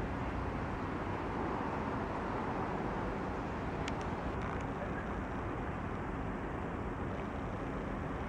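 Steady low rumble of distant road traffic, with a single faint click about four seconds in.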